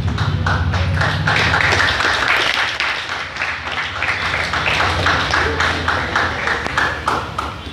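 A group of people clapping: dense, irregular applause that thins out and stops shortly before the end, over a steady low hum.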